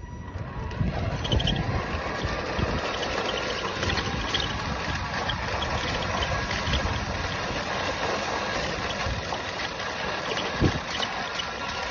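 Radio-controlled pickup truck driving over a rough path, heard from a camera riding on its bed: a steady, uneven rolling rumble from the tyres and chassis, with one sharp knock about ten and a half seconds in.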